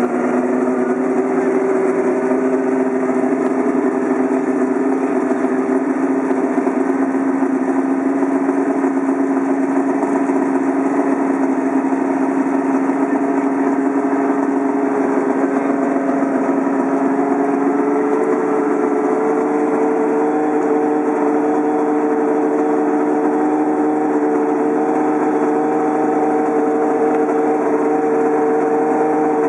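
Ferrari 312 T4's flat-12 Formula 1 engine running steadily at a fast idle while being warmed up. Its pitch creeps up slightly a little past halfway and holds there.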